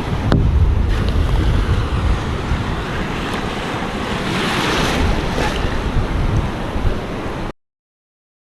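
Ocean surf washing in with wind buffeting the microphone, a steady rushing noise with a deep rumble; a wave swells louder about halfway through. The sound cuts off abruptly near the end.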